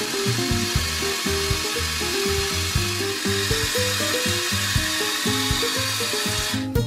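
Background music with a steady rasping, grinding noise laid over it, like a power-tool sound effect. The noise cuts off sharply near the end, leaving only the music.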